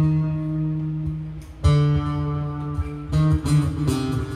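Acoustic guitar strummed in full chords that ring out. A new chord is struck about a second and a half in, then a few quicker strums near the end.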